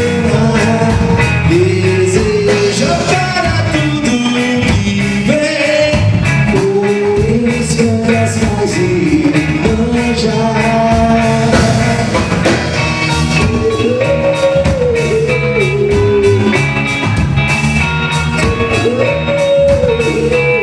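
A band playing a rock song with a sung lead vocal, guitar and a steady beat.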